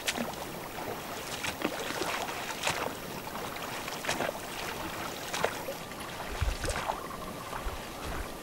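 Oars of an inflatable rowboat dipping and splashing in calm water, in regular strokes a little over a second apart.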